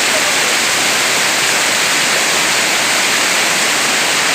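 Waterfall: falling water rushing loudly and steadily, with no change.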